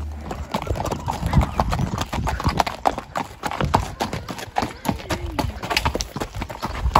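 A horse walking on a dirt and gravel track, its hooves clip-clopping in a steady run of footfalls.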